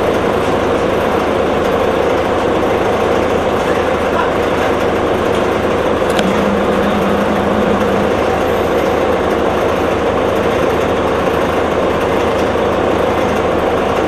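Inside an articulated city diesel bus: the Detroit Diesel Series 50 four-cylinder engine and Allison B-500R automatic transmission running with a steady drone heard through the cabin.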